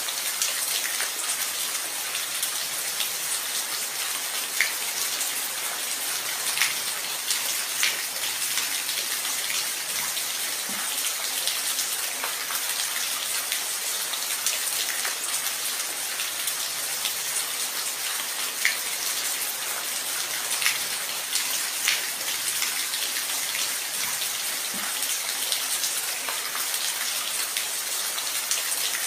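Steady rain falling, a dense even hiss with scattered louder individual drop hits.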